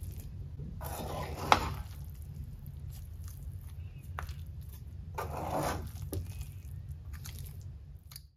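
Stainless steel perforated spoon stirring cooked biryani rice in a nonstick pan: two spells of scraping and shuffling through the rice, about a second in and again around five seconds in, with sharp clicks of the metal spoon against the pan, the loudest about a second and a half in. A steady low hum runs underneath, and the sound cuts off just before the end.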